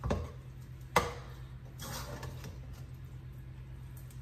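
A spoon knocks twice against a stainless steel pot. The second knock, about a second in, is sharp and loud. A soft scraping follows as ground meat and sloppy joe sauce are stirred in the pot.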